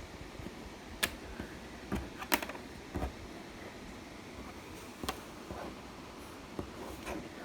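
Scattered light clicks and taps of thin laser-cut plywood model pieces being picked up and handled, about half a dozen over several seconds, the sharpest about two and a half seconds in.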